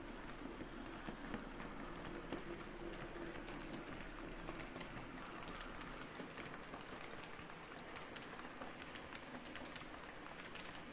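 Model railway freight wagons rolling past on the track: a dense, rapid clicking and rattling of small wheels on the rails, over a low steady hum.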